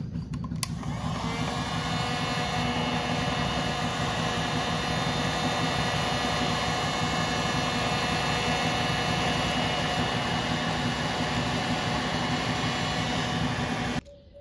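Heat gun switched on with a click, spinning up and then running steadily with a loud hiss and fan whine while heating the seized screws of a carburetor to free them; it cuts off near the end.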